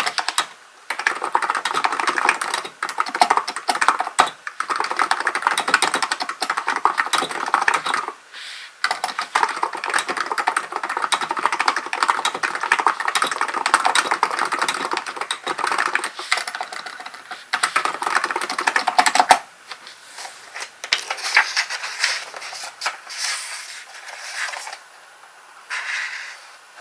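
Hansung GK898B electrostatic capacitive (Topre-style) keyboard being typed on quickly in long bursts with brief pauses. The typing stops about two-thirds of the way in, and only fainter, scattered sounds follow.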